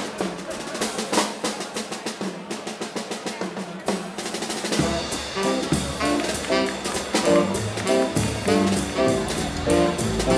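Live jazz drum kit played alone, a fast run of snare and cymbal strokes, then the full band comes back in about five seconds in: double bass, guitar and saxophone swinging with the drums.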